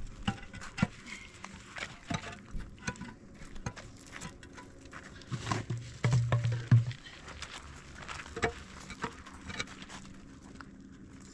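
Hollow concrete blocks knocking and scraping as they are set in place, with light scattered clicks and crunches on gravel. A louder low rumble lasts about a second, around six seconds in.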